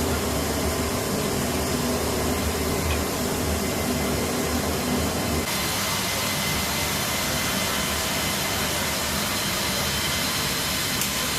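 Steady roar of aircraft engines, with the sound changing abruptly about five and a half seconds in as the low hum drops away.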